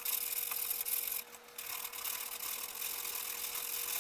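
Sandpaper rubbed by hand back and forth over a wooden ukulele body, a steady dry scratching hiss with a short break about a second and a half in.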